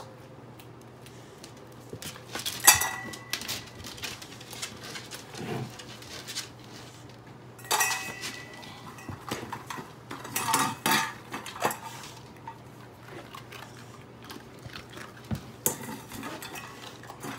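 Stainless steel dog bowls clanking as they are handled and set down, several separate knocks, some with a short metallic ring. The loudest comes about three seconds in.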